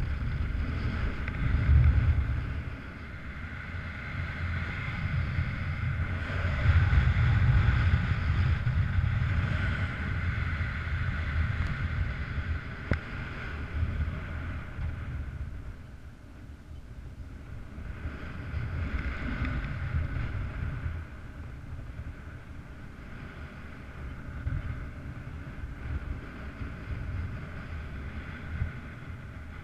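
Wind rushing over a paraglider pilot's camera microphone in flight, a steady buffeting rumble with a hiss above it that swells and fades with the gusts, briefly louder about two seconds in and again around seven to ten seconds, and quietest a little past the middle.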